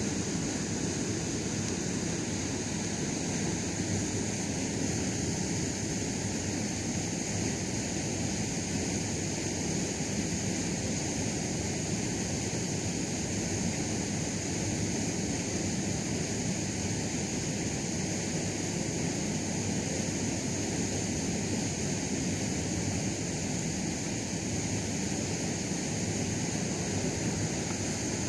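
Steady wind noise on the microphone mixed with small waves lapping at the shallow lake edge, with a constant high hiss over it; no separate events stand out.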